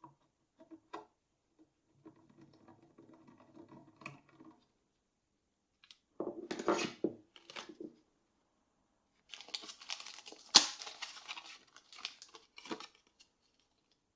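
Hands fitting a drill adapter to an RCBS TrimPro case trimmer: small metal parts clicking and rattling, mixed with rustling, in a few separate bursts, with one sharp click about ten and a half seconds in.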